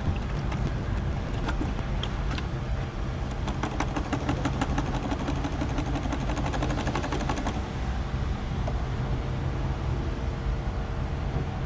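AdBlue glugging out of a plastic jug through a flexible spout into a vehicle's AdBlue tank. A rapid run of gurgling ticks in the middle stops as the jug runs empty. A steady low vehicle rumble runs underneath.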